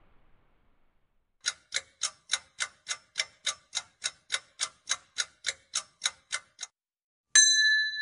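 Clock-ticking countdown sound effect, about three and a half sharp ticks a second for about five seconds, then a bright ding that rings on as time runs out and the answer is revealed.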